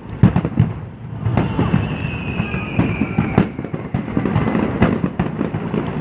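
Fireworks going off: a steady run of booms and crackles, loudest in the first second, with a thin, slowly falling whistle between about one and three and a half seconds in.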